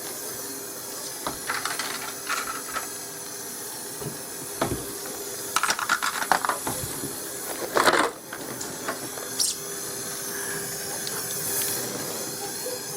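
A steady gas hiss during refrigerator repair work, with scattered metallic clinks and clatters of tools, the busiest in the middle.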